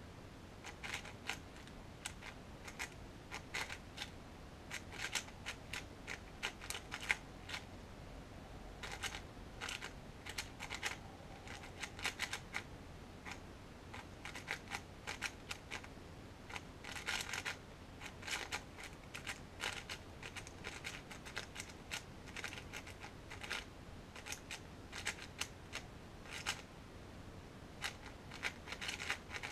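A QiYi MS 4x4 speedcube being turned fast by hand: quick runs of light plastic clicks and clacks from the layer turns, with brief pauses between runs.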